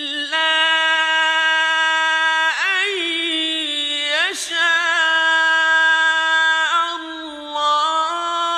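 A male Quran reciter's voice chanting a long, drawn-out melodic phrase. He holds steady notes, with wavering ornaments about a third of the way in and a step up in pitch near the end.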